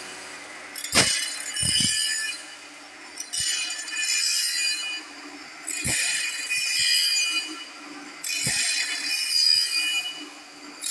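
Automatic band-saw blade sharpener's grinding wheel grinding the teeth of a sawmill band blade, a high-pitched metallic grinding that comes in repeated passes every two to three seconds, with sharp clicks between passes as the machine works tooth by tooth.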